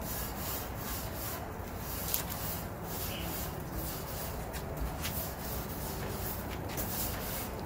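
Grill brush scrubbing the metal grates of a gas grill in repeated back-and-forth strokes, scraping off leftover food.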